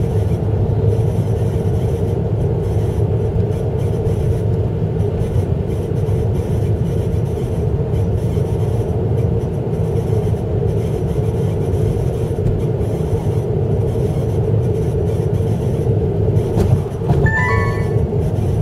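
Honda Civic FD2 on the move: a steady low rumble with a constant drone, the abnormal noise under investigation. A few short higher-pitched sounds are heard near the end.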